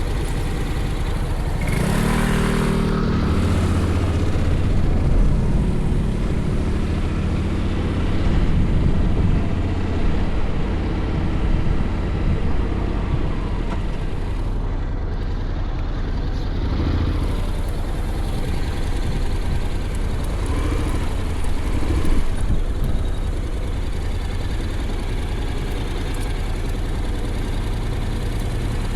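Honda X-ADV's parallel-twin engine running under a steady haze of road and wind noise. The engine note rises about two seconds in, then holds fairly steady.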